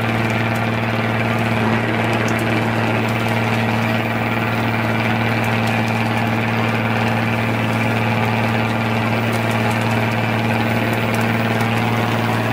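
A fishing boat's engine running steadily, a constant low drone with no change in pitch.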